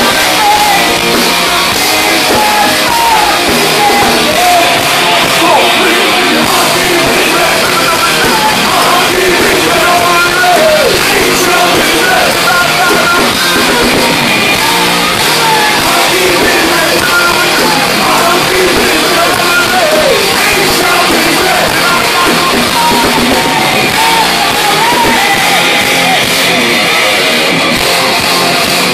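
Hard rock band playing live, loud and continuous: electric guitars, bass and drums filling a concert hall.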